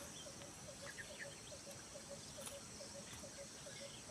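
Faint outdoor ambience: a steady insect drone with an even train of short low notes, about five a second, and a few faint high bird chirps about a second in.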